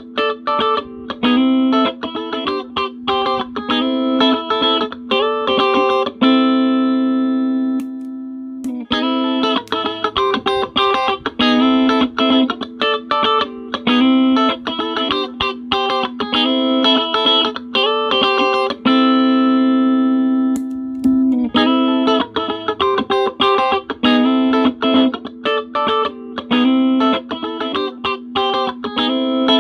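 Sterling JP60 electric guitar played through a compressor pedal and a small practice amp: quick picked single-note phrases. A held note rings out and slowly fades about six seconds in, and again about nineteen seconds in, as the phrase repeats.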